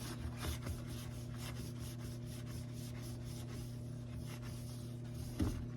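Cloth rubbing and wiping a rubber washing-machine door gasket clean with isopropyl alcohol, in many short repeated strokes, over a steady low hum.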